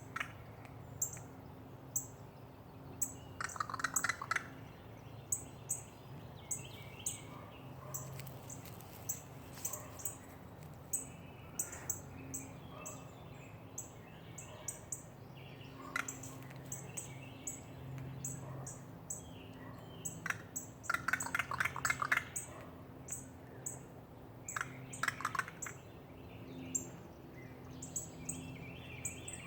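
A crow calling from a tree: harsh calls in short bouts, the longest a rattling run about three-quarters of the way through. Quick high chirps tick on steadily behind them.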